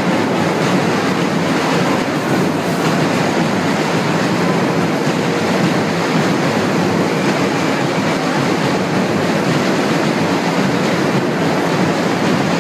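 Loud live carnival band and crowd, overloaded on a phone's microphone into a dense, steady wash of noise in which no tune or voice stands out.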